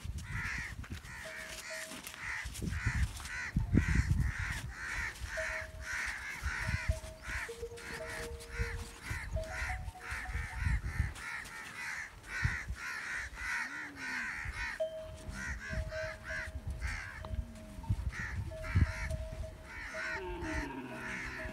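A flock of crows cawing, many short harsh calls repeating and overlapping all the way through. A low rumble comes and goes underneath and makes the loudest moments, about four seconds in and near nineteen seconds.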